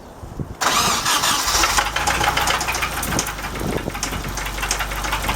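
An engine is cranked and catches about half a second in, then settles into idle with a repeated ticking knock. The owners are unsure whether the knock comes from a lifter or a connecting rod.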